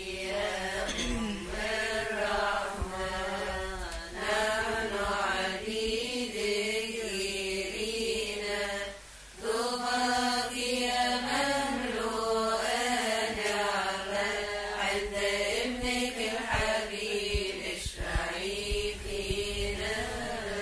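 A woman's voice chanting a Coptic Kiahk praise hymn to the Virgin Mary in long, drawn-out melodic phrases, with a short break about nine seconds in.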